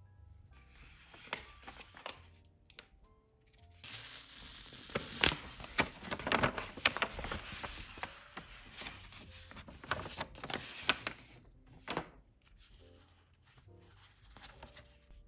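A paper mailer envelope being opened with crinkling and tearing, then a stack of photo prints rustling as it is pulled out and handled, with a few sharp paper snaps.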